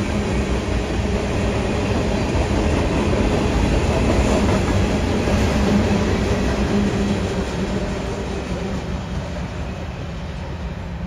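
Freight train of tank cars and covered hoppers rolling past close by: a steady rumble and clatter of wheels on rail, which eases off from about seven seconds in as the cars move away.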